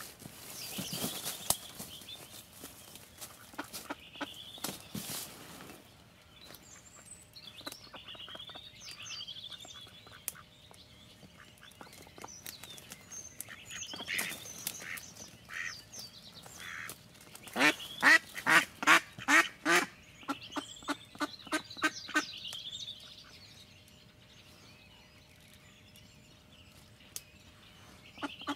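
Live decoy duck, a domestic mallard hen, quacking: scattered calls, then about two-thirds of the way through a fast run of quacks, about four a second, loud at first and then trailing off. This is the hen's calling series, used to lure drakes. Softer bird calls sound around it.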